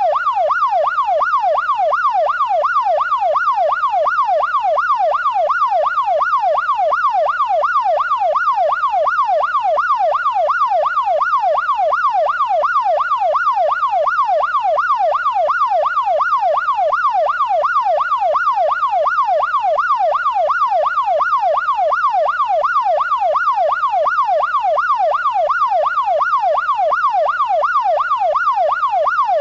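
Electronic police siren on its fast yelp setting, rising and falling in pitch about twice a second, held steady without a break.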